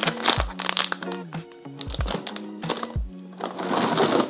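Background music with a steady beat. Near the end, plastic food bags crinkle as they are handled and set into a drawer.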